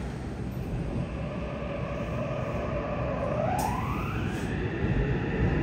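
Mitsubishi IGBT-VVVF inverter and traction motors of a Yokohama Subway 3000S train starting off from a station, heard inside the car. Over a steady low rumble, a thin whine holds one pitch, then rises smoothly about three seconds in and levels off higher as the train begins to accelerate.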